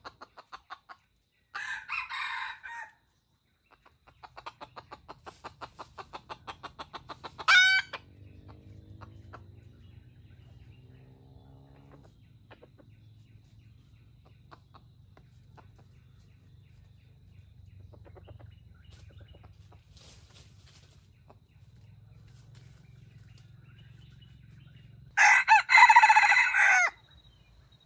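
Red junglefowl rooster calling: a run of quick clucks building to a loud call at about seven and a half seconds, and a short loud crow near the end, the loudest sound here. Another brief call comes about two seconds in.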